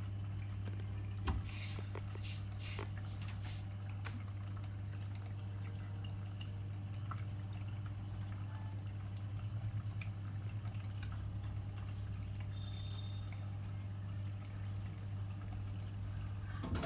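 Bosch washing machine drain pump running in its service-mode drain test: a steady low hum with water pouring and dripping through it. A few sharp clicks come about two seconds in.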